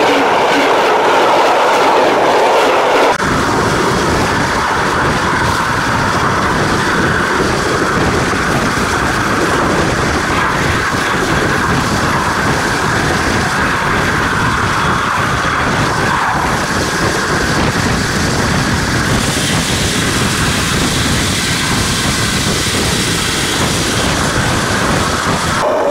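Steel railway wagon wheels rolling on the rails, close up. For about three seconds a wagon passes over at track level, then the sound changes suddenly to the steady rolling noise and rattle of a bogie heard from underneath the moving train, with a brighter hiss setting in about two-thirds of the way in.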